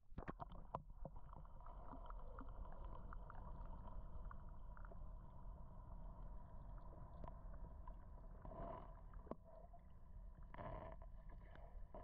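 Muffled underwater sound picked up by a camera submerged in a sea turtle tank: a steady low rumble with scattered small clicks, and two short louder rushes of water noise about nine and eleven seconds in.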